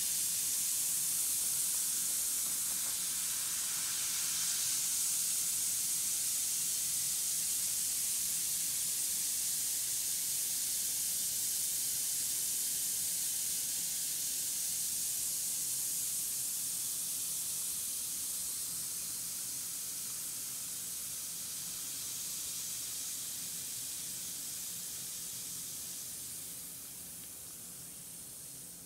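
A bath bomb fizzing as it dissolves in a bowl of water: a steady high hiss that slowly weakens and dies away over the last few seconds as the fizz is spent.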